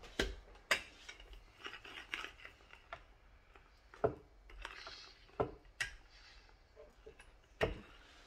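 Wooden rolling pin rolling out rye bread dough on a wooden butcher-block board, with several sharp knocks of the pin and hands against the wood between quieter rolling and rustling.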